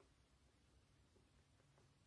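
Near silence: room tone with a few faint, soft ticks.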